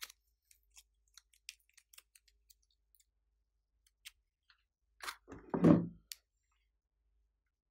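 Faint sticky clicks and taps of fingertips pressing and smoothing soft modelling clay, then a louder single bump with a short rustle about five to six seconds in.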